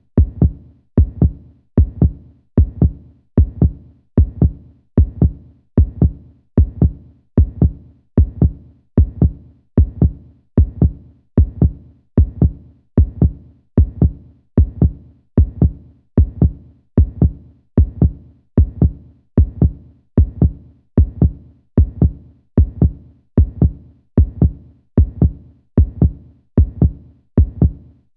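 Human heartbeat: a steady lub-dub, each beat a pair of low, dull thumps, repeating evenly a little more than once a second.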